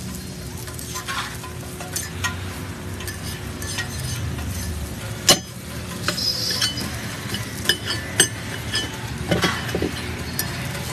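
Metal spatula knocking, scraping and clinking on a cast-iron dosa griddle as a rolled noodle dosa is chopped into pieces, over a low sizzle. There is a sharp knock about five seconds in and a run of chopping clicks near the end.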